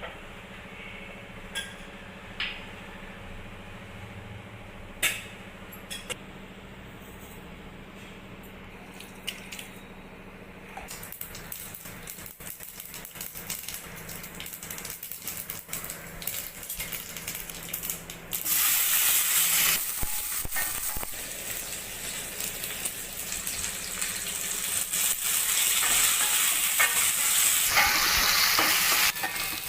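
A few light clicks and knocks of kitchen utensils, then food frying in a pan. The sizzle builds from about a third of the way in and turns suddenly loud about two-thirds through.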